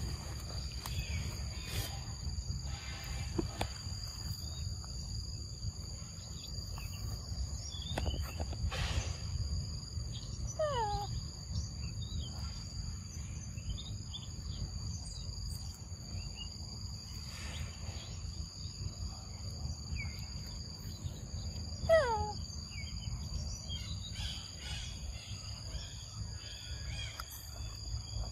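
Forest ambience: a steady high insect drone at two pitches over a low rumble. A descending whistled call, falling from high to low, sounds twice: about ten seconds in, and again louder about 22 seconds in.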